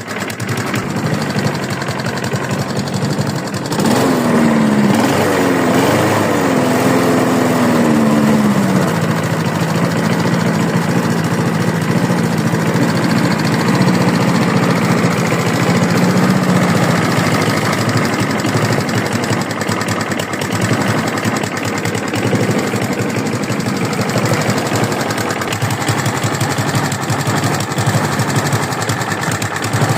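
Lawn mower engine running with a knock that the owner suspects may be rod knock. About four seconds in the engine speeds up, its pitch wavering for a few seconds before holding steady.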